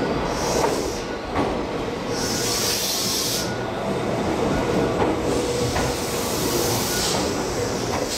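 Tobu Ryomo limited express electric train arriving slowly at a station platform, its running gear rumbling steadily. Three bursts of air hiss cut through: a short one near the start, a longer one of about a second and a half, and another near the end.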